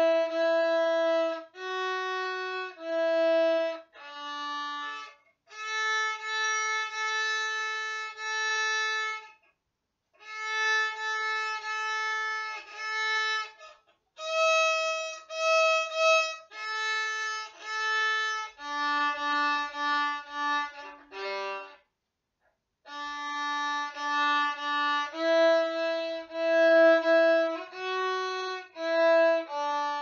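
Solo violin played by a young beginner: a simple melody bowed one note at a time, with some notes held long. There are short pauses between phrases, the longest about 22 seconds in.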